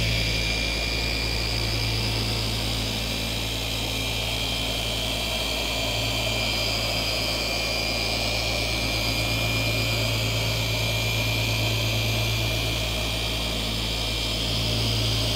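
DIY Detail 25 mm long-throw dual-action polisher running continuously with a foam pad pressed on a car door panel: a steady motor hum with a thin, even high whine over it.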